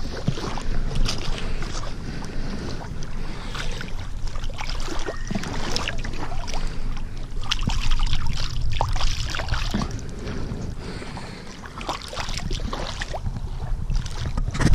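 Water splashing and sloshing as hands move in the shallows, over steady wind rumble on the microphone, with irregular crackly handling noises throughout.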